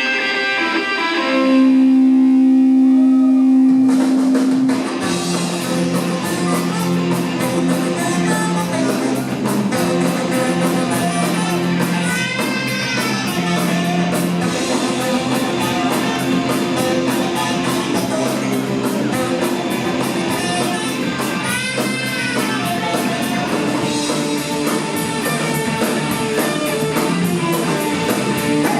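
A punk rock band playing live on electric guitar and drum kit: a single held note at first, then the full band comes in about four seconds in and plays on at a steady, driving pace.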